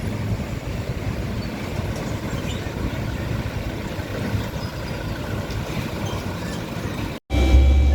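Road traffic: heavy trucks rumbling past, a steady mix of engine and tyre noise. About seven seconds in it cuts off abruptly and is replaced by a louder, steady engine drone with a few held tones above it.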